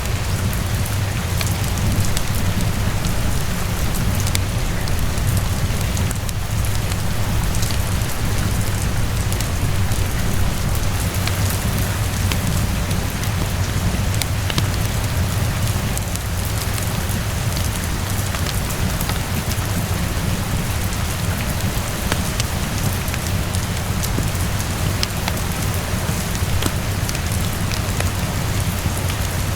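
Steady rain falling on surfaces, with a constant deep low rumble underneath and scattered small crackles and pops from a wood fire.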